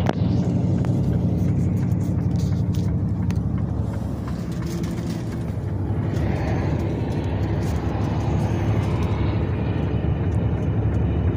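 Steady low rumble of a car driving at highway speed, heard from inside the cabin: engine hum and tyre noise on the road.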